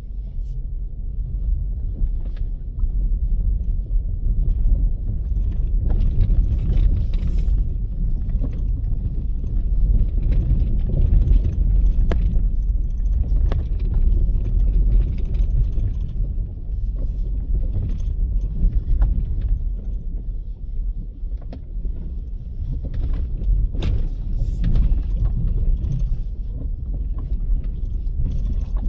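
Car driving over a rough back road: a steady low rumble from tyres and running gear, with scattered rattles and knocks as it goes over bumps.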